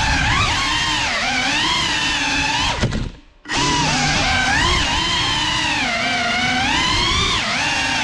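GEPRC Cinelog 35 cinewhoop's brushless motors and ducted propellers whining, the pitch rising and falling with the throttle. About three seconds in the whine cuts out almost completely for half a second, as the throttle is chopped, then spins back up.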